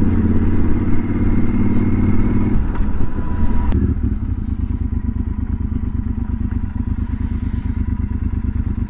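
Motorcycle engine running at low speed, dropping back about two and a half seconds in as the throttle closes, then idling with an even, rapid pulse as the bike stands on gravel.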